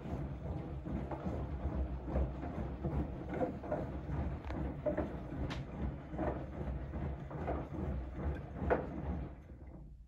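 Siemens front-loading washing machine in its wash cycle: the motor turns the drum with a low hum while the wet pillow and sudsy water slosh and splash irregularly. The drum slows to a stop near the end.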